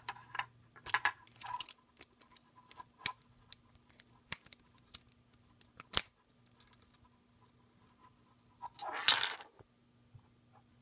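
Plastic magazine follower being clipped onto a steel magazine spring by hand: scattered sharp clicks and short metallic rattles, with a louder, longer rattle about nine seconds in.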